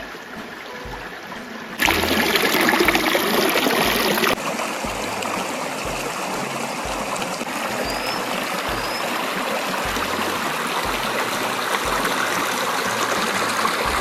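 Shallow, rocky river running and gurgling over stones, a steady rush of water. It gets suddenly louder about two seconds in and eases back a little about two seconds later.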